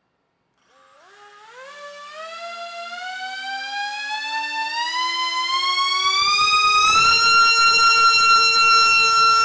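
Four brushless motors and propellers on an RC car spinning up for a thrust test, giving a whine that rises in pitch in steps. About seven seconds in it levels off at a steady high whine with a rush of air.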